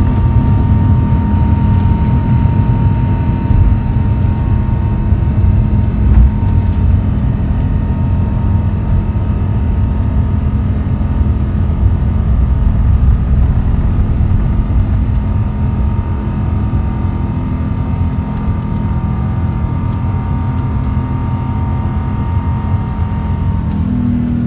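Rolls-Royce Trent XWB turbofans of an Airbus A350 at full takeoff thrust, heard from inside the cabin: a loud, steady rumble with a steady high tone running through the climb-out. Near the end the high tone fades and the sound changes.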